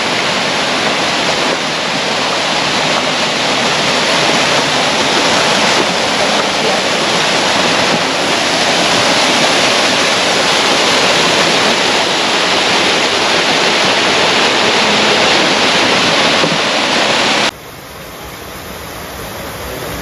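Small waterfall splashing into a pool: a loud, steady rush of falling water heard up close. Near the end it drops suddenly to a softer rush.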